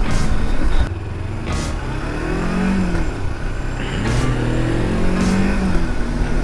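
Kawasaki Versys-X 300's parallel-twin engine pulling under throttle, its pitch rising and falling back twice as it revs up.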